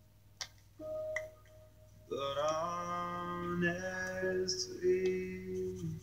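Background pop song: a soft, sparse opening, then from about two seconds in a voice sings long held notes over the backing.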